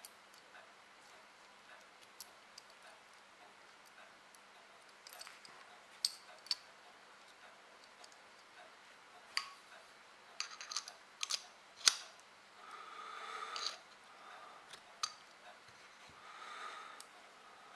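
Small steel parts of an Uberti 1860 Army replica revolver clicking and tapping as they are fitted into the frame by hand: scattered sharp clicks, thickest and loudest past the middle, with two spells of soft rubbing and handling after them.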